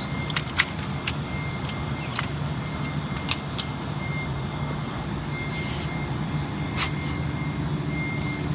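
A steady low background hum with a scatter of sharp metallic clicks and clinks, like tools and the weld mold being handled.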